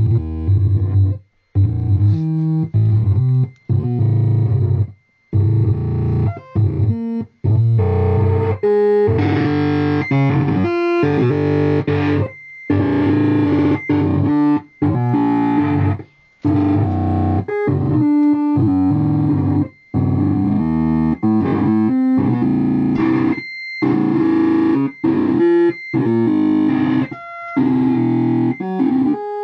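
Electric guitar played through effects pedals with a synth-like processed tone. Phrases of notes break off abruptly into short silences several times.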